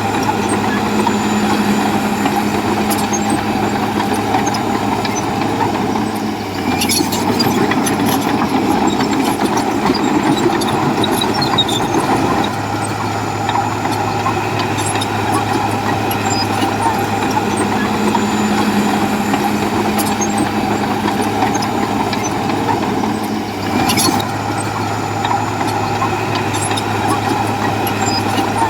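Heavy diesel engine of a bulldozer running steadily under load, with two brief clanks, one about seven seconds in and another about 24 seconds in.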